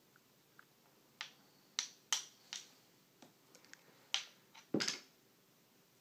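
Small wooden stacking-toy pieces clicking and knocking together as they are handled, a string of irregular sharp clacks, the heaviest knock a little before the end.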